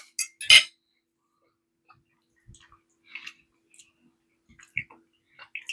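Two sharp clicks in quick succession about half a second in, then a few faint, scattered clicks and small mouth noises close to the microphone.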